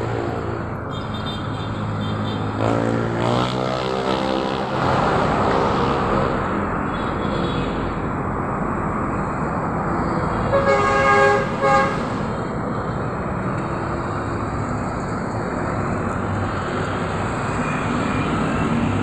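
Steady street traffic with vehicles driving past. One engine passes about three seconds in, its pitch gliding. A car horn sounds two short toots about eleven seconds in.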